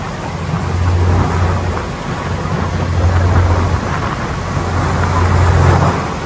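Ferry under way: a low engine drone that swells and fades every second or two, under a steady rush of wind buffeting the microphone and water.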